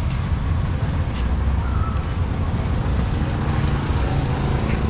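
Busy street-market ambience: a steady low traffic rumble with faint voices and occasional clicks, and a faint thin high whine from about halfway.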